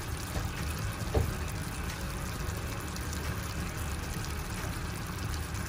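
Sugar and corn syrup boiling hard in a saucepan, a steady bubbling hiss, with a light knock about a second in. The syrup is still short of the soft-ball stage.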